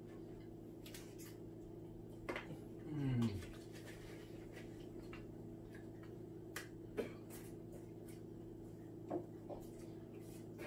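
Quiet eating sounds: a few faint clicks and taps of a fork on a foil tray over a steady low hum, with a short murmur falling in pitch about three seconds in.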